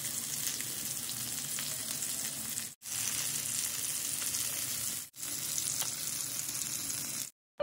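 Fish steaks shallow-frying in hot oil in a pan, the oil sizzling steadily. The sizzle breaks off for a moment twice, near three and five seconds in, and stops just before the end.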